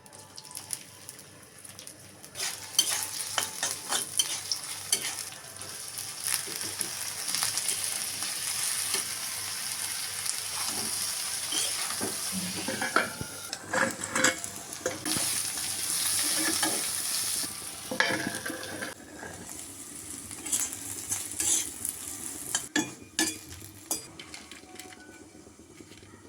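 Bitter gourd (karela) frying in hot oil in a pan, sizzling steadily while a spatula stirs it with sharp clicks and scrapes against the pan. The sizzle dies down about two-thirds of the way through, leaving occasional spatula knocks.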